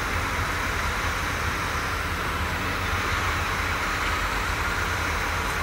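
Tractor engine running steadily under load as a tractor drives over a maize silage clamp, compacting the chopped maize; an even mechanical drone with no breaks or sharp knocks.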